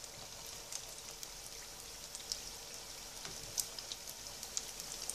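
Belyashi, raw-meat-filled yeast-dough pies, deep-frying in very hot oil: a steady sizzle with sharp pops and crackles scattered all through it.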